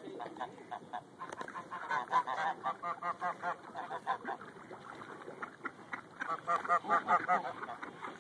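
Greylag geese honking in rapid runs of short calls, several a second, with a lull about five seconds in before a second run.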